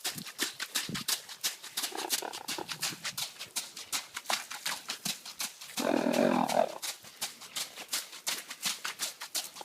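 A sleeping pet snoring: a fast clicking rattle all the way through, with slow breaths swelling every second or two and one louder snore about six seconds in.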